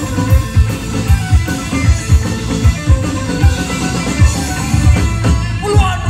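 Live rock band playing through stage PA speakers: electric guitars over a steady drum beat.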